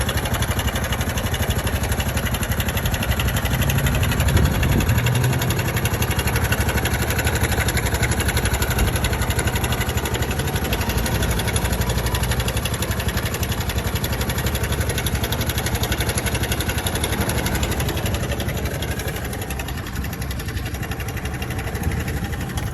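Honda Super Cub JA44's air-cooled single-cylinder four-stroke engine running steadily at idle, briefly louder about four seconds in.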